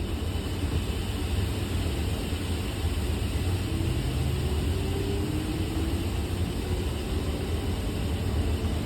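Meitetsu 5000 series electric train moving off, running with a continuous rasping 'zazaza' noise, and a faint rising tone about a third of the way in as it gathers speed. The noise is an abnormal sound that the uploader wonders may come from the train's updated static inverter (SIV).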